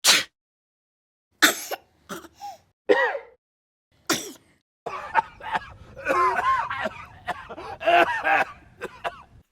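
A person coughing: a few separate sharp coughs a second or so apart, then from about five seconds in a longer run of coughs close together, with some voiced rasp in the throat.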